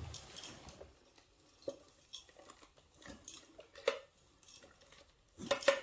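Light, scattered clicks and taps of small toy pieces being handled and set down, with a louder burst of handling noise near the end.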